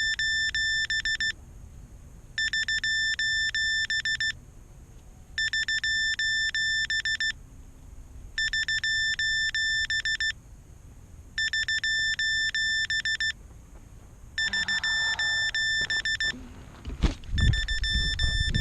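Electronic ringer with a fast trill, sounding in bursts of about two seconds, repeating every three seconds. Near the end there are heavy low thumps.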